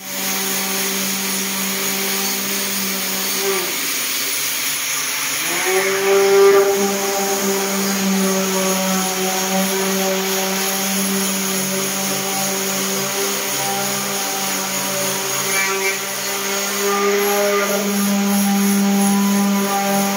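Electric orbital palm sander running against fiber-board ceiling panels, sanding the joints level before putty and paint. A steady motor hum whose pitch sags about four seconds in and climbs back about a second and a half later.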